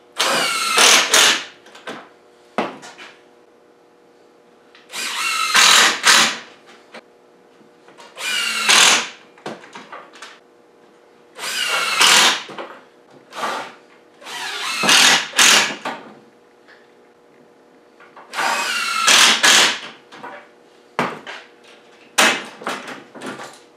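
Cordless impact driver driving screws into a wooden face frame: six separate runs of about a second each, the motor whine rising as it spins up on each one. A couple of sharp knocks near the end.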